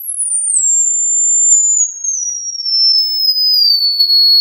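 Pure test tone from a phone's online tone generator, played through a car audio power amplifier into small bench speakers: a very high whistle that falls in steps to a lower, still high-pitched whistle as the frequency is turned down, then rises slightly near the end. It shows the amplifier channel passing the high frequencies while its frequency response is checked.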